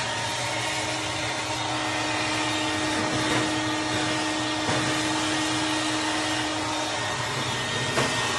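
Vacuum running steadily with a steady whine while its hose nozzle sucks up ash and pellet dust from the floor of a pellet grill's barrel. A few short clicks sound over it, the sharpest near the end.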